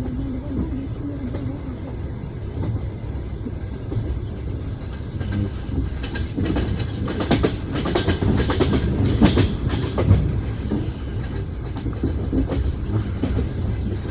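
Passenger train wheels clacking over rail joints under a steady low rumble, heard from inside an open-plan sleeper carriage. A run of sharper, quicker clacks comes in the middle.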